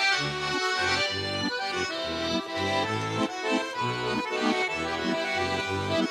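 Accordion playing an instrumental folk tune over a steady beat of alternating bass notes and chords: the closing bars after the last sung verse.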